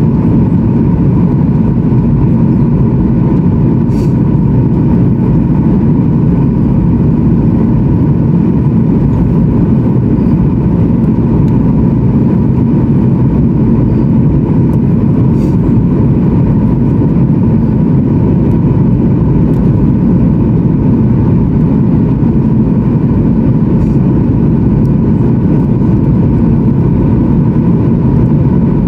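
Steady in-flight cabin noise of a Boeing 737-900ER: the deep, even rush of its CFM56-7B turbofans and airflow, with a steady whine riding above it.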